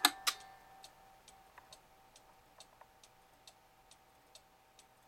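Chalet-style cuckoo clock: two sharp clacks at the start as its music box and moving figures stop, a last music-box note fading away, then the pendulum escapement ticking steadily, a little over two ticks a second.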